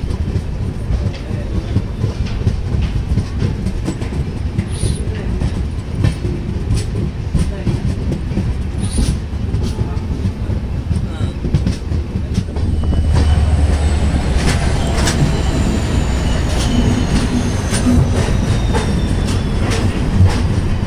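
Train wheels running over rail joints and points, clattering with many sharp clicks, heard from the doorway of a moving LHB passenger coach. About two-thirds of the way through the rumble gets louder, and a faint high squeal slowly falls in pitch.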